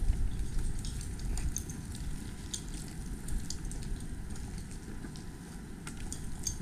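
Footsteps on a forest hiking trail: scattered light crunches and crackles over a steady low rumble on the microphone.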